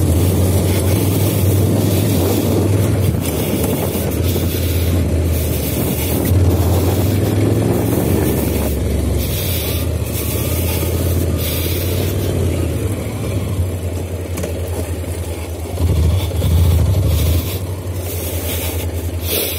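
Honda NC750X parallel-twin engine running under a rider on a sandy dirt track, with a rumbling wind-buffeted rush over it and a louder swell of throttle about three-quarters of the way through.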